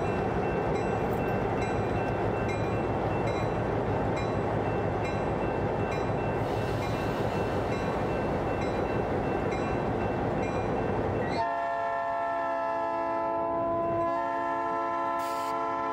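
Turbocharged EMD GP20 diesel locomotive running at close range as it moves slowly past, a dense, loud engine rumble for about eleven seconds. Then the rumble drops away suddenly, leaving a steady chord of several tones that breaks briefly and resumes near the end.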